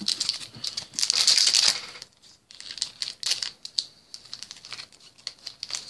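Paper trading cards being handled: a quick run of clicks and rustling for about the first two seconds as the cards are squared up and set on the pile, then lighter scattered clicks and rustles.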